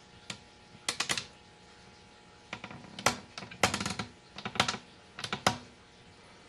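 Irregular sharp clicks and taps, some single and some in quick clusters like typing, over a quiet background.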